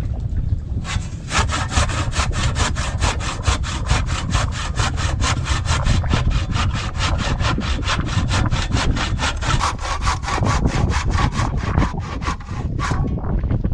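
Handsaw cutting through a hard, dry chunk of mangrove wood in quick, even strokes, about four a second, with a short pause about a second in and the strokes stopping near the end.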